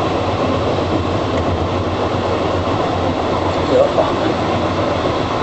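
Passenger train running steadily, heard from inside the carriage: an even noise of wheels on rails over a low hum.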